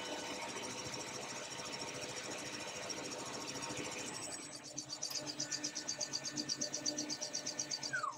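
Alternator test bench spinning a repaired Bosch 110 A alternator under test, a steady mechanical running sound. About four seconds in, a fast rhythmic pulsing hiss sets in, and just before the end a short falling tone.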